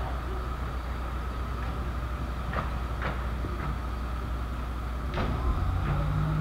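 A steady low rumble, with a few short sharp clicks scattered through it and a brief low hum near the end.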